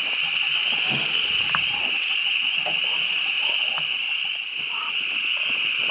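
A dense chorus of frogs calling at night, heard as a steady high-pitched trilling drone. A few faint clicks and rustles sound over it.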